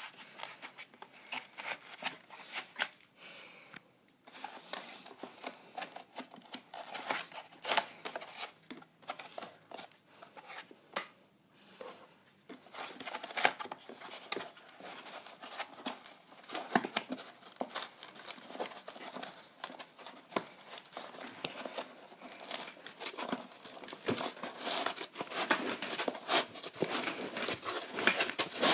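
Plastic packaging and bubble wrap being handled: irregular crinkling and rustling with sharp crackles, with a couple of short lulls, growing busier about halfway through.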